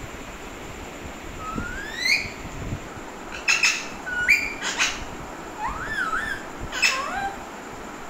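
Alexandrine parakeets calling: a smooth rising whistle about two seconds in, then a run of short harsh squawks and a wavering whistle over the next few seconds.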